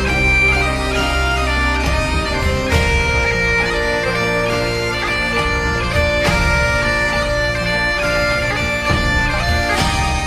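Bagpipe music: a melody of held notes over the pipes' steady drones.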